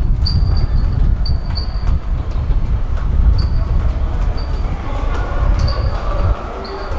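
Footsteps clicking sharply and irregularly on a hard floor, over a steady low rumble that drops away about six seconds in.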